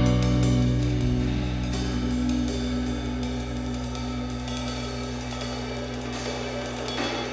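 Background music: a held chord with drums and cymbals, slowly fading out.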